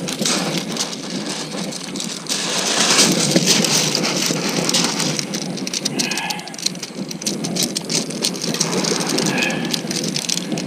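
Pebbles of a shingle beach clattering and crunching under a freshly landed mackerel as it flaps on the stones and is unhooked, a dense run of small stony clicks throughout.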